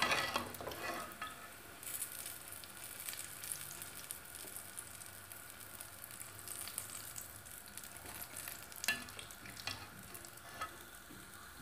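Hot oil sizzling and crackling steadily as food deep-fries in a pan, with a few light clicks.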